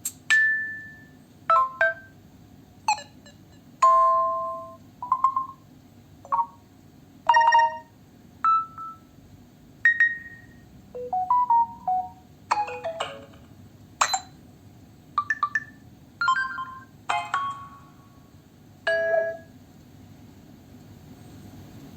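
Samsung Galaxy A03s phone speaker playing a string of short alert tones one after another, about one a second. Each is a different brief chime, beep or little melodic figure, and they stop shortly before the end.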